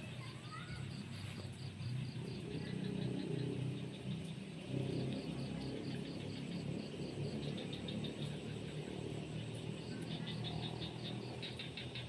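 Insects calling in rice-paddy countryside: trains of rapid high chirps, about seven a second, each lasting a second or two and coming back every few seconds, over a low steady rumble.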